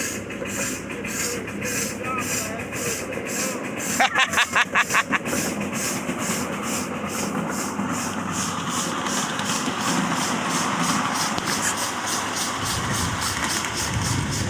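Live-steam Erie locomotive chuffing steadily at about two beats a second as it pulls the riding train, with a short run of quicker, louder beats about four seconds in.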